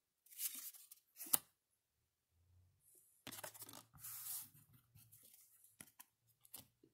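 Trading cards being handled: card stock rubbing and scraping as cards are shuffled and slid over one another, in two short rustling spells, then a few light taps near the end.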